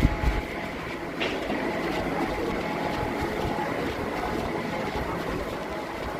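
Sawmill machinery running steadily, a constant hum over a rumbling noise, with a short high squeal about a second in.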